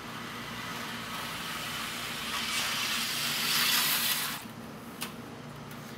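HO scale tank car coasting down the helix grade under gravity, its wheels rolling along flex track nailed directly onto OSB: a rolling hiss that grows louder, then stops abruptly a little after four seconds in when the car is caught by hand, with a single click about a second later. The car runs smoothly and freely over the rail joints.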